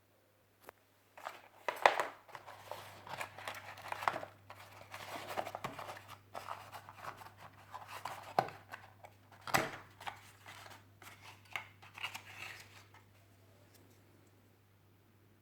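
Hands handling plastic and cardboard packaging and parts: irregular rustling, crinkling and sharp clicks. It starts about a second in and dies away a couple of seconds before the end.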